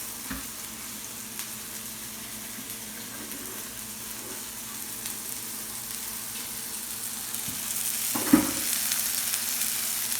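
Minced-chicken patties sizzling steadily in butter on a grill pan over low heat. About eight seconds in there is a single knock, and the sizzling grows louder after it.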